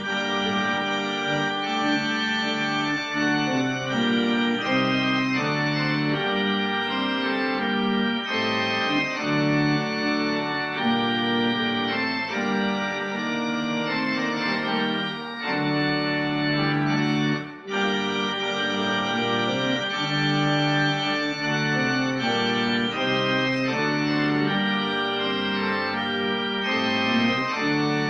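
Organ playing a postlude of sustained, full chords that change every second or so, with two short breaks between phrases about 15 and 17.5 seconds in.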